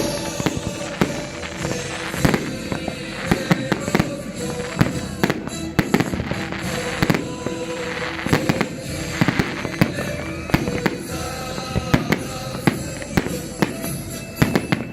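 Fireworks going off in many rapid, irregular bangs, with music playing underneath.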